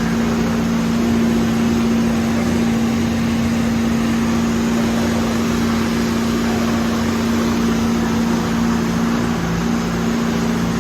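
A machine running steadily: a constant low hum over an even rushing noise, with no change throughout.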